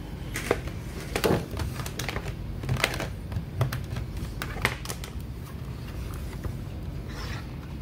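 Irregular light clicks and taps of a laptop being handled, over a low steady hum.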